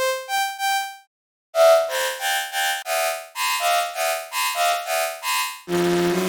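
Electronic synthesizer music: a few short plucked notes, a brief gap about a second in, then rhythmic synth chord stabs, changing near the end to a held, thicker chord.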